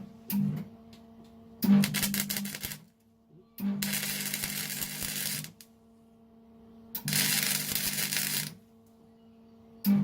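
Gasless (flux-core) MIG welder laying weld in separate bursts of one to two seconds, each a crackling sizzle over the welder's hum, starting and stopping sharply.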